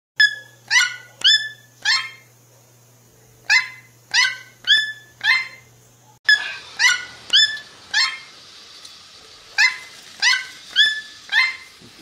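A toucan calling: runs of four or five short calls, each with a quick downward slide in pitch, about half a second apart, with pauses of a second or more between runs.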